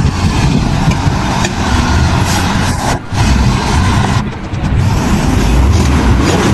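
A heavy motor vehicle or machine engine running loudly, with a brief break about three seconds in.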